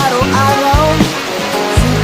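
Background music: a pop song with a sung vocal over a steady drum beat.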